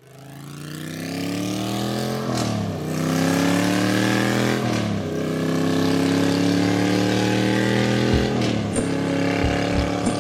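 A vehicle engine accelerating through the gears. Its note climbs steadily, then falls sharply at an upshift, about two and a half, five and eight seconds in. The sound fades in at the start.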